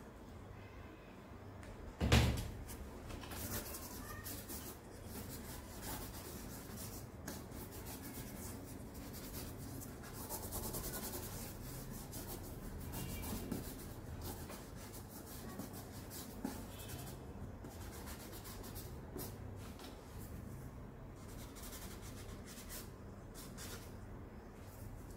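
Charcoal stick scratching and rubbing across drawing paper in repeated short strokes, with a single thump about two seconds in.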